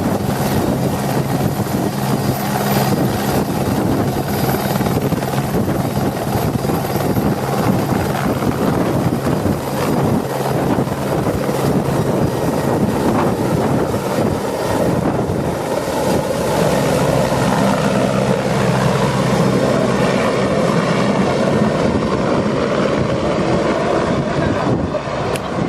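Eurocopter AS355F-2 TwinStar twin-turbine helicopter running steadily: rotor noise with a faint high turbine whine.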